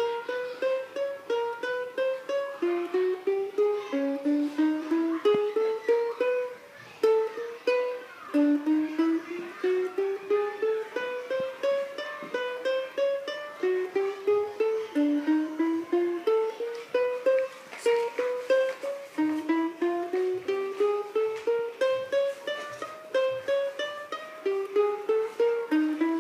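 Ukulele picked one note at a time with a pick, playing a finger exercise: short runs of about four rising notes, repeated over and over from shifting starting pitches.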